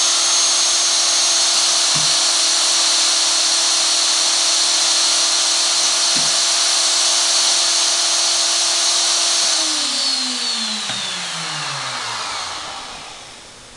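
Marimba mallet machine's electric motors running at speed, a steady whine over a loud rushing noise. About nine and a half seconds in, they are switched off and spin down, the whine falling in pitch and fading out near the end.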